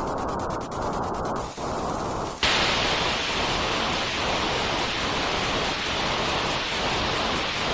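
Electronic white noise for soothing a baby. It starts as a muffled, low rushing noise with gentle swells, then about two and a half seconds in switches abruptly to a brighter, full hiss that holds steady.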